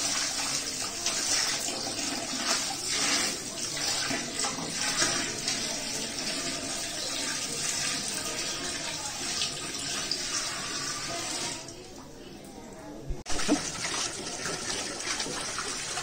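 Water poured from a bucket splashing and gushing into a partly filled glass aquarium over gravel and decor. The pour thins out about twelve seconds in, then a sharp knock, and the gushing starts again.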